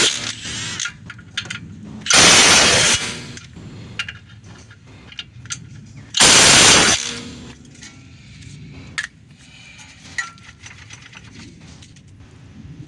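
Impact wrench hammering in two bursts of just under a second each, about two seconds in and again about six seconds in, running brake caliper bolts tight. Light clicks and clinks of tools are heard between the bursts.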